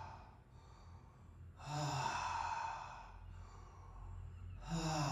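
A man breathing deeply through the mouth, two long audible breaths, one about a second and a half in and another near the end. Each begins with a brief touch of voice and trails off into a hiss of air.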